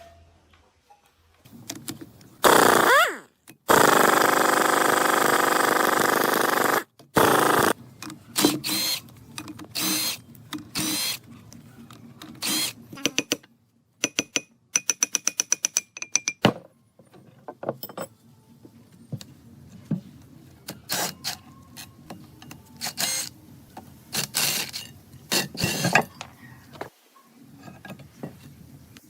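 A handheld power tool spins up with a rising whine and runs steadily for about three seconds, then stops. Workshop clicks and knocks of tools and metal parts follow, including a quick run of about eight rapid clicks a second for two seconds.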